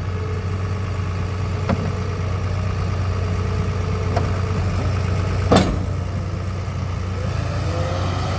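Komatsu D61PX-24 crawler dozer's diesel engine running steadily as the dozer pushes dirt. Metal knocks come from the machine about two and four seconds in, and a sharper clank about five and a half seconds in. The engine pitch wavers near the end.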